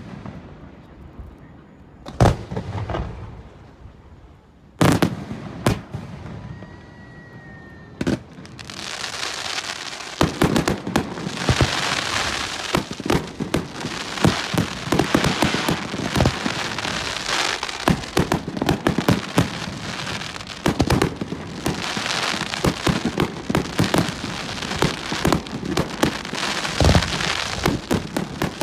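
Aerial fireworks display: a few separate shell bursts with gaps between them, then from about nine seconds a dense, continuous run of crackling and rapid bangs, as in a finale-style barrage.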